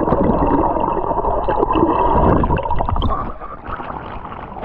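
Muffled underwater gurgling and bubbling of swimming-pool water around a swimmer, heard through a submerged GoPro camera; it drops quieter about three seconds in.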